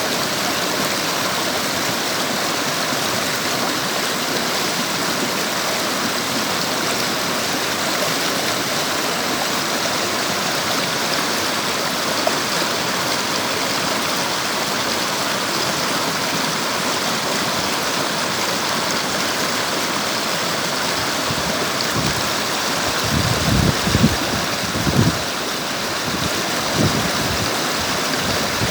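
River water rushing and flowing steadily. A few low thuds come in near the end.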